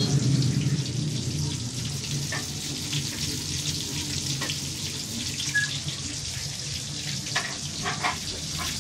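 Chicken pieces frying in hot oil in a wok: a steady sizzle with occasional sharp pops and crackles.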